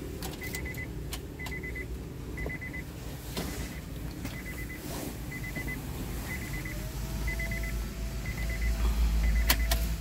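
Honda Freed's cabin warning chime beeping about once a second. A few clicks and knocks come from the cabin, the loudest near the end over a low rumble.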